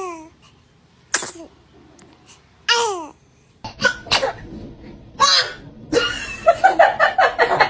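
Babies sneezing: several short, sharp sneezes, between high little vocal sounds that slide down in pitch. Near the end comes a quick run of laughter.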